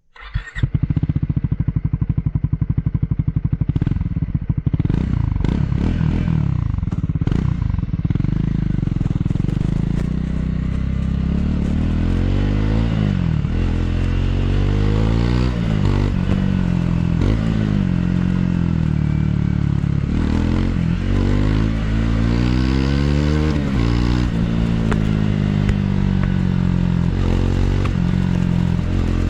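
Triumph Scrambler 400 X's single-cylinder engine on its stock exhaust, running with even firing pulses and some clatter for the first several seconds. It then pulls away, and the engine note rises and drops back repeatedly as the bike accelerates and shifts through the gears.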